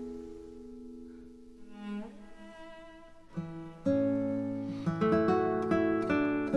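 Instrumental background music with plucked strings: a held chord dies away over the first few seconds, then a new phrase of notes comes in about four seconds in.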